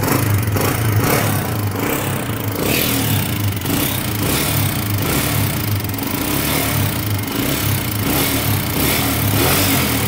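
Honda CG125's single-cylinder four-stroke engine running steadily at idle, with a regular mechanical ticking from inside the engine: an internal noise fault that has not yet been traced to the cam, tappets or rocker pins.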